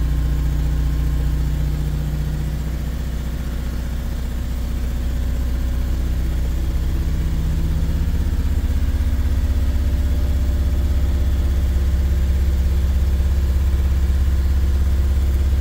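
Mercedes T1N Sprinter's diesel engine running steadily at a fast idle of about 2000 RPM while it warms up.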